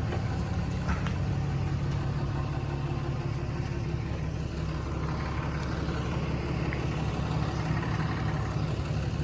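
Steady low engine hum, like a motor idling, with no change in pace.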